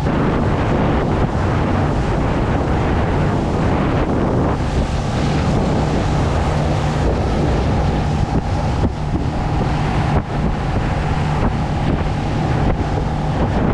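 Wind buffeting the microphone on a pontoon boat under way, over the steady drone of its motor and the rush of water.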